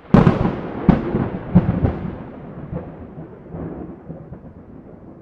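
A thunderclap: a sharp crack just after the start and several more cracks in the next two seconds, then a long rumble that slowly fades.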